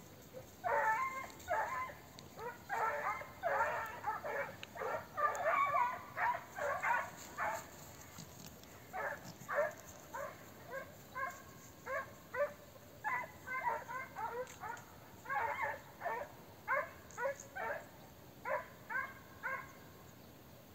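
Hare-hunting dogs giving tongue: quick runs of high yelping barks, a few a second with short breaks, as they work a hare's trail.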